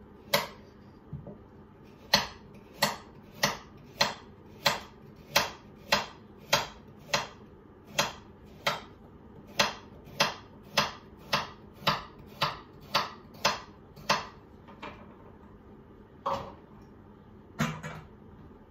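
Knife chopping carrots on a wooden chopping board: a steady run of about twenty sharp chops, a bit under two a second, then a pause and two more chops near the end.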